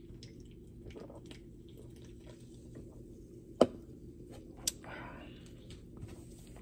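A person sipping a drink and swallowing, over a steady low hum. A single sharp click comes about three and a half seconds in, and a fainter one about a second later.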